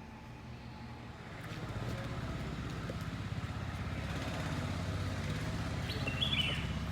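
A motor vehicle's engine running, a low pulsing hum that grows louder about a second and a half in and holds steady. A brief high chirp sounds near the end.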